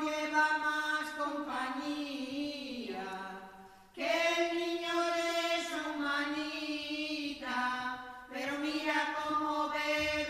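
A women's choir singing a Spanish Christmas carol unaccompanied, in long held notes. The first phrase falls in pitch at its end, with short breaks about four and eight seconds in before the next phrases.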